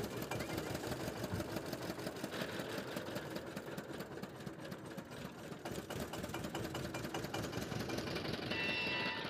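Powered sugarcane juice crusher running, its geared rollers clattering in a fast, even rhythm as cane is fed through. A short high-pitched tone sounds briefly near the end.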